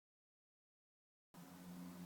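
Dead silence, then about a second and a third in a faint, steady low hum begins.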